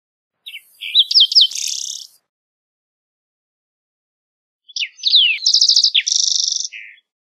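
Green-tailed towhee singing two song phrases a few seconds apart. Each phrase is a few short whistled notes and down-slurred whistles running into a fast buzzy trill.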